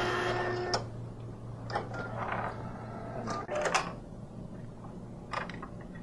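Datacard SD360 ID card printer printing and ejecting a sample plastic card. A steady whine lasts about the first second, then a series of short mechanical clicks and whirs sounds as the card moves through and out of the printer.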